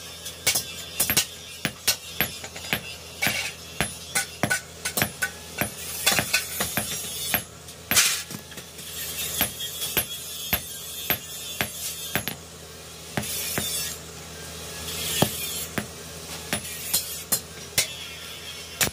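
Hand hammer striking red-hot iron on a steel block anvil while forging a nail cutter blade: a fast, uneven run of sharp metallic clinks, several a second, with short stretches of hiss about eight seconds in and again a little later.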